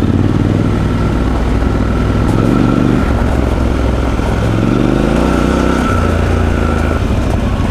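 Triumph Scrambler 1200 XE's parallel-twin engine pulling at low revs with a deep pop-pop-pop beat. The revs rise and ease off twice, about two seconds in and again about five seconds in.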